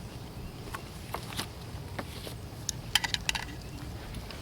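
Scattered light clicks and small metallic clinks, with a quick cluster of them about three seconds in.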